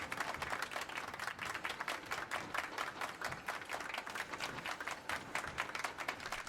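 Applause: many hands clapping in a steady, dense patter.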